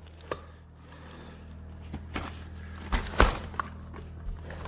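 A few plastic knocks and clicks as a Dyson Ball Animal 2 upright vacuum is tipped back from upright into floor mode, with the loudest pair about three seconds in, over a low steady hum.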